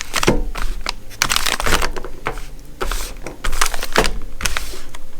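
Small plastic packages being handled: crinkling and rustling with irregular sharp clicks and knocks as they are moved about.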